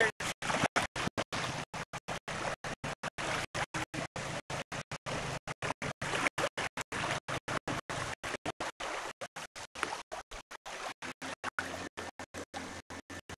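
Steady rushing noise of wind and small waves on the water, chopped by short regular dropouts in the sound about four times a second.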